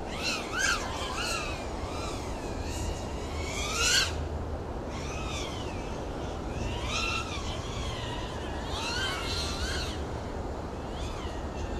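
FPV quadcopter's motors and propellers whining, the pitch rising and falling with the throttle, with a sharp climb that cuts off about four seconds in. Wind rumbles on the microphone.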